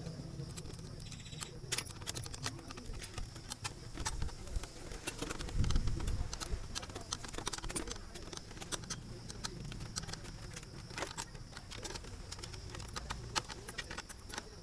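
Irregular light clicks and taps of parts being handled during reassembly of an electric water heater, with a dull knock about six seconds in.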